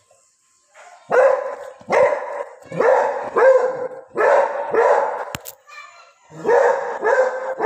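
Beagle barking, about eight loud barks that come one after another, often in pairs, beginning about a second in, with a short pause near six seconds.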